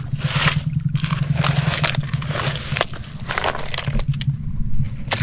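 Wet gravel crunching and rattling as a hand scoops it out of a plastic toy dump truck's bed, in a series of scrapes about once a second. A steady low hum runs underneath.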